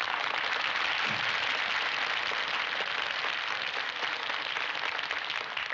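Studio audience applauding: a steady wash of clapping that dies away right at the end.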